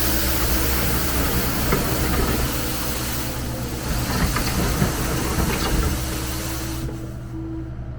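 John Deere 325G skid steer's diesel engine running while the Paladin sweeper's rotating brush hisses and scratches over the pavement, with scattered ticks of grit and debris. The brushing hiss falls away about seven seconds in, leaving the engine.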